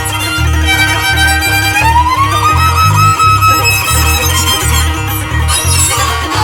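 Violin playing over a pulsing bass line, sliding up in pitch about two seconds in and holding the high note.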